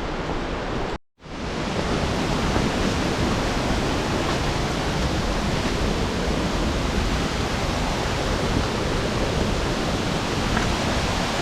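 Waterfall rushing in a steady, even roar, broken by a brief complete dropout about a second in.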